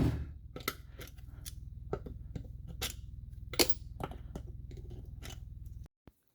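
Scattered light clicks and taps of a Tomos moped engine's parts and tools being handled during strip-down, over a steady low hum that cuts off suddenly near the end.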